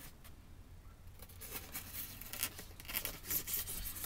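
Craft knife blade slicing through a board piece in a series of short scratchy strokes, making the deepest, final cut that frees the piece.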